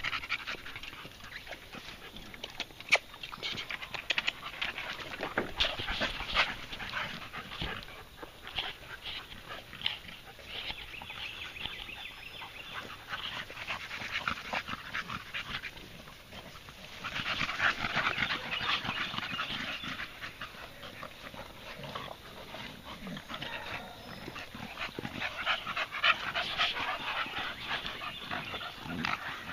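Blue-nose American Bully dogs playing rough together, panting and scuffling, in louder bouts.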